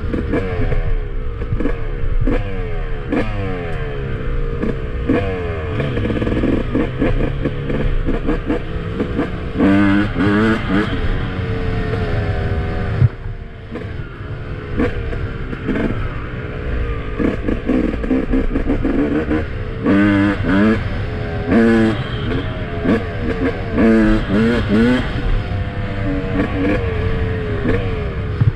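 Yamaha YZ250 single-cylinder two-stroke dirt-bike engine, freshly rebuilt, revving. Its pitch rises and falls repeatedly, with several short sharp throttle blips.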